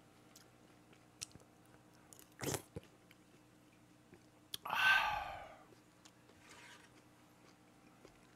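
A person chewing food close to the microphone while eating from a bowl with chopsticks: soft chewing with small clicks, a short sharp sound about two and a half seconds in, and a louder, longer breathy sound about five seconds in.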